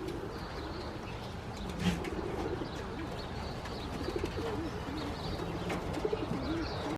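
Pigeons cooing over and over in low, wavering calls, with faint small-bird chirps and a single sharp knock about two seconds in.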